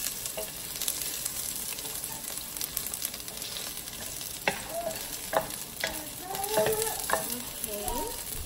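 Sliced onion and ginger sizzling in oil in a pot while a wooden spoon stirs them, with scattered taps and scrapes of the spoon against the pot.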